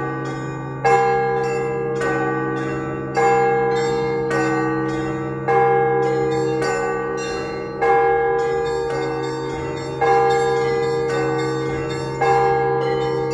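Orthodox church bells ringing: a loud bell stroke about every second, with lighter, higher bells struck in between and a deep bell's hum ringing on underneath.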